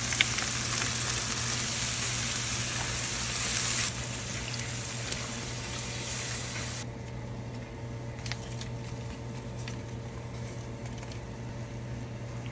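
Food frying in hot oil, a steady sizzling hiss that drops away sharply about four seconds in and again near seven seconds, leaving a steady low hum with a few faint clicks.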